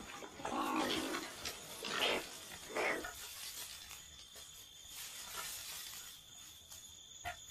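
Koalas making harsh calls as two males square off to fight in a tree: three or four loud calls in the first three seconds, then quieter.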